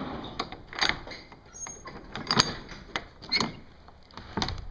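A few sharp knocks and clicks at uneven spacing, the loudest about halfway through, like hard objects or hardware being handled.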